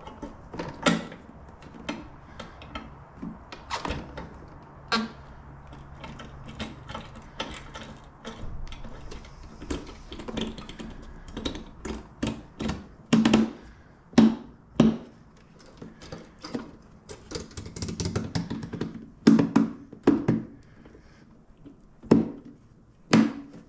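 Irregular clicks, knocks and rattles of a hard motorcycle saddlebag and its fittings being handled and set back onto a Harley-Davidson Road Glide, with the sharpest knocks in the second half.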